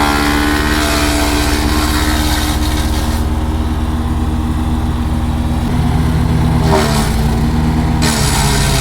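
Engine-driven wood chipper running steadily. Its engine note sags slightly about seven seconds in, and the higher hiss thins out from about three seconds in and comes back near the end.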